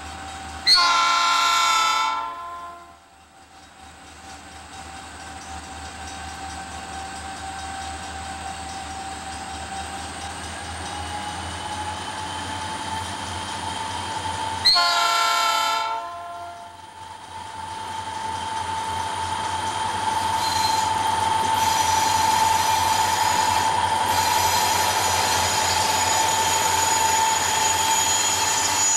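Southern Pacific diesel locomotive 9310 blowing its chime horn twice, each blast about a second and a half long, the second about fourteen seconds after the first. In between, the diesel engines work hard under load as the train pulls upgrade from a stop, with a steady whine that rises slightly in pitch and grows louder as the locomotive comes closer.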